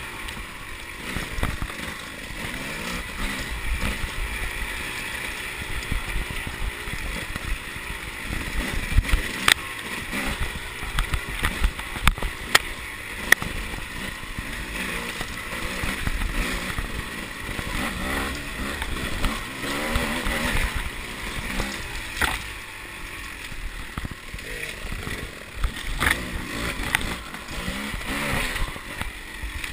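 A 300 cc two-stroke enduro motorcycle engine heard from on the bike, revving up and down as the rider works the throttle along a rough trail. Several sharp knocks cut through along the way.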